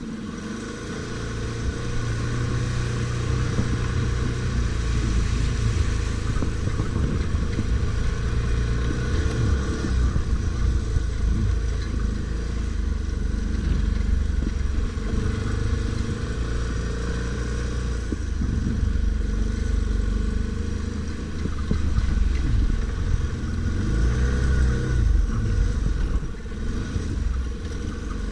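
ATV engine running off-road, its pitch and level rising and falling with the throttle.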